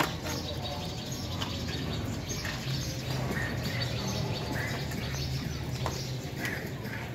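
Small birds chirping: short, repeated chirps a second or so apart from about three seconds in, over a steady low rumble.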